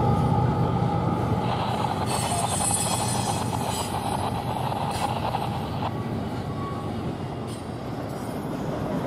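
Double-stack intermodal train's well cars rolling past: a steady rumble of steel wheels on the rails that slowly gets quieter. A diesel locomotive's engine note dies away in the first second as it moves off.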